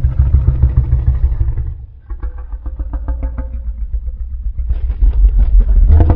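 Low, rattling growl sound effect for a cartoon spinosaurus. It is loud at first, dips about two seconds in, carries on more thinly, and swells again near the end.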